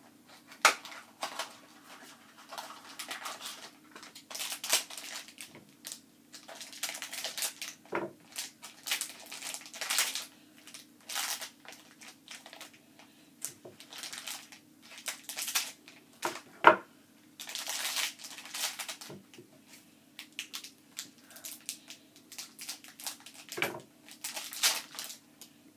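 Packaging of a Minecraft mini-figure blind box being handled and torn open by hand: irregular crinkling and tearing rustles with a few sharp snaps.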